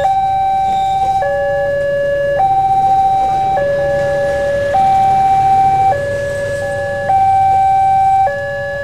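Railway level-crossing warning alarm sounding a two-note electronic tone, alternating high and low with each note held a little over a second. Under it runs the low rumble of passenger coaches passing over the crossing.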